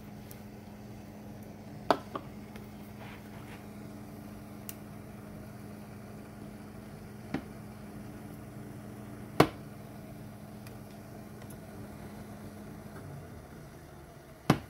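A plastic debubbling stick knocking a few times against a glass canning jar as it is worked down through packed pickled ginger slices in brine, freeing trapped air bubbles. Sharp single knocks, the loudest about two thirds of the way through and just before the end, over a steady low hum that fades out near the end.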